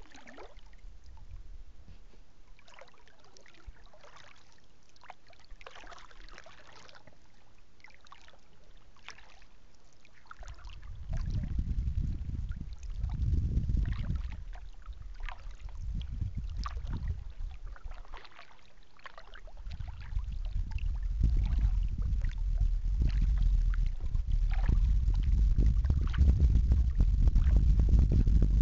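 Paddling a kayak on a calm river: faint drips and small splashes of water off the paddle, then from about eleven seconds in a low wind rumble on the microphone, first in two gusts and then steadier and louder toward the end.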